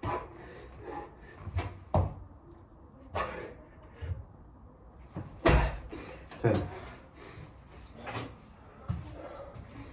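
Thuds and slaps of a person doing burpees with push-ups on a floor mat: hands and feet landing as he drops down and jumps back up, with hard breathing between. The loudest, heaviest thud comes about five and a half seconds in.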